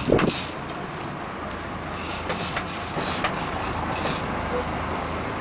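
Sport fishing boat's engine running with a steady low hum under wind and water noise, with a few short sharp clicks and knocks.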